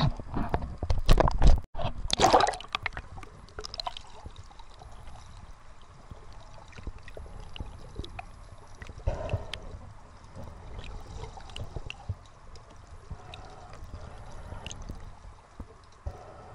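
Sea water splashing loudly at the surface for the first two seconds or so. It then turns to muffled underwater sloshing and gurgling with scattered faint clicks, and a brief swell of water noise about nine seconds in.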